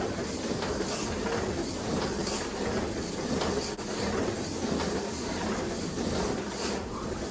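Slot car running on a plastic track: a steady whir of its small electric motor and wheels, with recurring clicks as the guide passes over the track joints.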